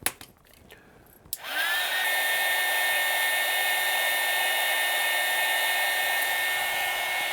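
Hot-air heat gun switched on with a click about a second and a half in, its fan spinning up with a brief rising whine and then blowing steadily, shrinking heat shrink tubing over the soldered XLR pins.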